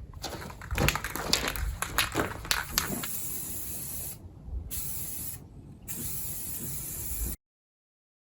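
Aerosol spray-paint can rattled with quick clicks for about three seconds, then sprayed in a steady hiss with two brief pauses. The sound cuts off abruptly about a second before the end.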